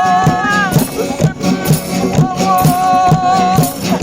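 Music with a steady beat and shaker rhythm under a held, wavering melody line that drops out about a second in and returns.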